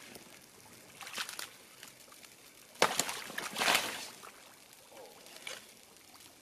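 Rubber boots wading in shallow, muddy marsh water, sloshing and splashing in irregular bursts; the loudest splash starts sharply a little under three seconds in.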